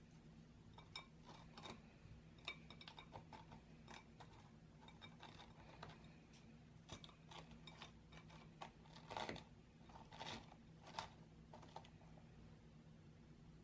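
Dry toasted bread crust strips being laid into a ceramic bowl: faint, scattered crisp taps and light scrapes, with a few louder clicks about nine to eleven seconds in.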